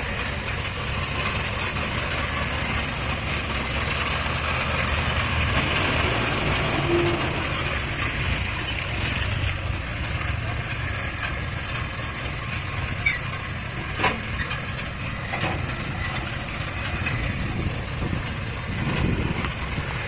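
Engine of a small tracked crawler carrier running steadily as it drives up steel grating ramps onto a barge, with a couple of sharp metal clanks a little past the middle as the tracks cross the ramps.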